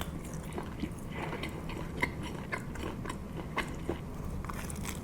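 A person biting into and chewing a slice of vodka pizza, with a string of short, irregular mouth clicks and small crunches, over a low steady hum.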